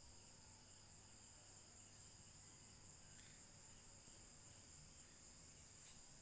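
Near silence: a faint, steady high-pitched chirring of crickets in the background, with a faint clink a little after three seconds.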